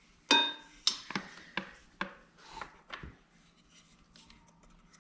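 Compression gauge hose and its brass fittings being handled and fitted into the spark plug hole of a scooter's engine: a string of clicks and scraping that dies away about three seconds in.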